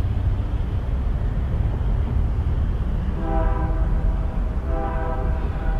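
Train horn sounding two blasts over a steady low rumble: the first starts about three seconds in and lasts about a second, the second is shorter and comes just after.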